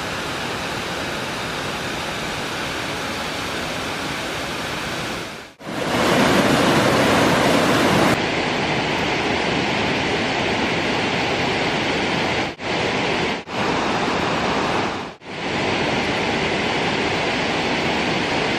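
Waterfall's steady rush of falling water. It drops out and returns at four abrupt breaks, and is louder for a couple of seconds after the first.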